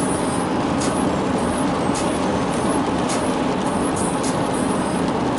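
Steady road and engine noise inside the cabin of a moving minivan.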